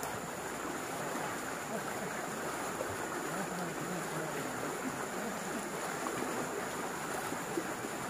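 Fast, muddy river water rushing over shallow rapids: a steady wash of noise.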